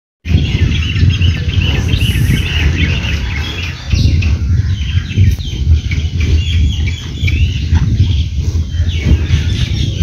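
Many small birds chirping in quick, short calls, several sliding down in pitch, over a loud low rumbling noise.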